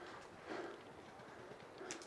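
Footsteps crunching on dirt and loose stones, with a few light gear clicks near the end.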